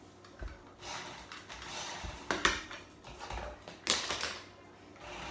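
Handling noises close to the microphone: irregular rustling and clattering with two sharp knocks, about two and a half and four seconds in.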